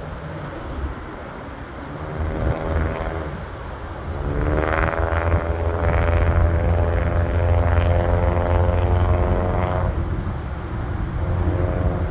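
Business jet's engines climbing out after takeoff: a loud, deep jet rumble that swells about four seconds in and eases slightly near ten seconds.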